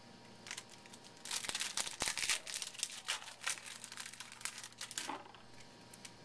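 A trading-card pack's wrapper crinkling and tearing as it is opened by hand, a dense crackle that is loudest and busiest in the first couple of seconds and stops near the end.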